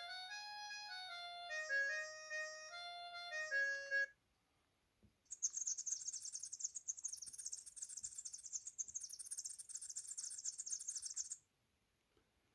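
Ringtones of an Avatar ET1 watch phone playing from its built-in speaker. A melodic tune of single notes stops about four seconds in; after a short silence and a click, a bird-chirping ringtone of fast high-pitched twittering plays for about six seconds and stops.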